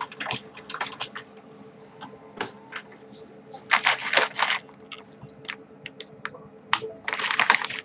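Typing on a computer keyboard: scattered keystrokes, with two quick flurries of typing about four seconds in and near the end.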